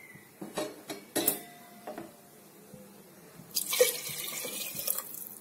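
A few short knocks, then water poured from a glass bowl into a pressure cooker over rice and dal, splashing for about two seconds near the end.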